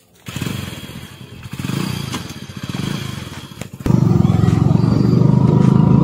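Engine running close by with a rapid pulsing; about four seconds in it suddenly becomes much louder and steadier.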